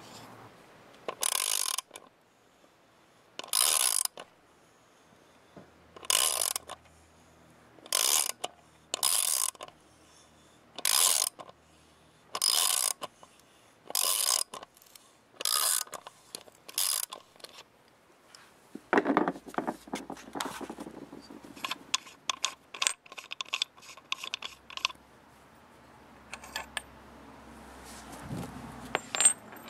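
Ratchet wrench turning the threaded screw of a valve spring compressor to compress a valve spring, clicking in short strokes about every second and a half, around eleven times. After that comes a run of quicker, lighter clicks, and near the end only a few faint ticks.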